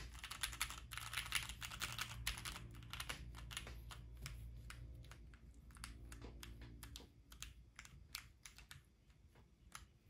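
Keychron Q1 mechanical keyboard typed on: lubed Gateron Milky Yellow linear switches on the stock steel plate, with stock ABS keycaps and no plate foam, giving a clacky sound. Fast, dense keystrokes for the first three seconds or so, then slower, scattered keystrokes that stop just before the end.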